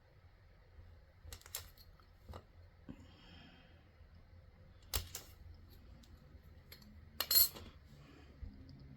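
Scattered light clicks and taps of small hard objects handled on a work surface, with a louder cluster of clicks about seven seconds in, over a faint low hum.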